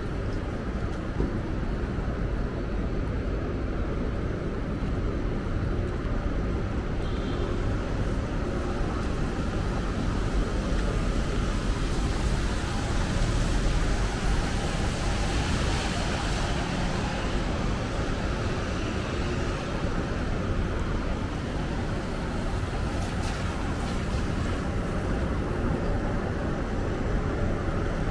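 Steady city street traffic noise on a wet street, swelling for several seconds around the middle as vehicles go by.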